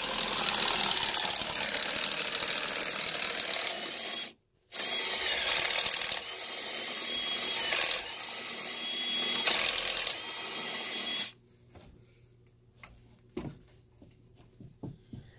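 Power drill with a paddle bit boring a hole through a wooden wall top plate, cutting steadily for about four seconds, breaking off briefly, then cutting again for about six more seconds before stopping. A few light knocks follow.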